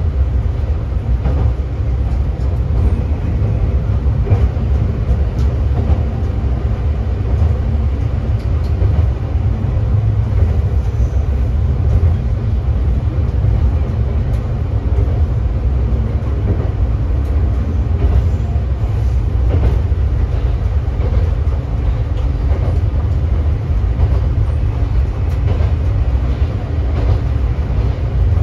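Diesel railcar KiHa 3710-03 under way, heard from on board: a steady diesel engine drone with wheel and rail noise and faint ticks.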